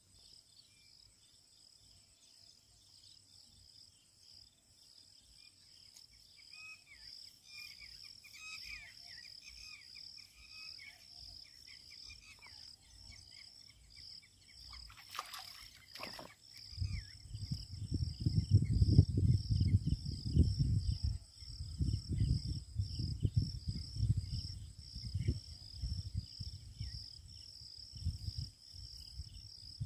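Insects, cricket-like, chirping in a steady high pulsing trill, with a few faint bird chirps in the first half. About halfway through, loud irregular low rumbles of wind buffeting the microphone take over.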